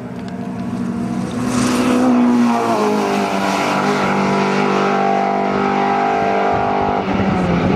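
Hillclimb race car's engine at high revs, pulling hard up the hill. It grows louder over the first two seconds and rises in pitch, drops once about two and a half seconds in, then holds a high, steady note.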